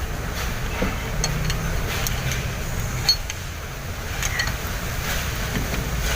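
Scattered light metallic clicks and clinks of hand tools on the rocker arms during a valve-clearance adjustment on an Isuzu 12PE diesel engine, the sharpest about three seconds in. A steady low rumble runs underneath.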